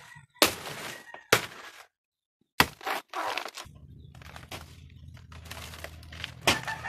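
Machete chopping into the soft, fibrous stalk of a cut banana plant: a few single sharp chops spread out, the last one near the end.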